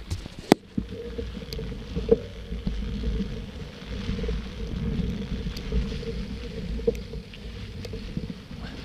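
Mountain bike rolling along a leaf-covered dirt trail: a steady low rumble of the tyres and wind on the camera, broken by sharp knocks and rattles as the bike hits bumps, the loudest about half a second in and another at about two seconds.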